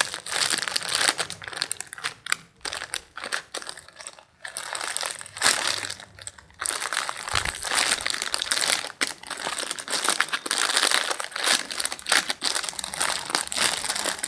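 Plastic packaging crinkling and rustling in uneven spurts as a squishy toy is handled and squeezed in its bag.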